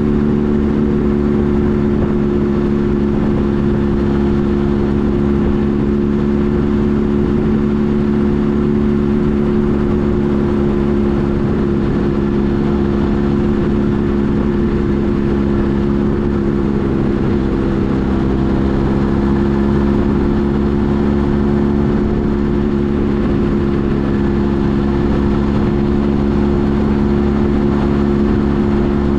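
Kawasaki Z H2 SE's supercharged inline-four engine running steadily at an even engine speed, with a slight dip in pitch about two-thirds of the way through.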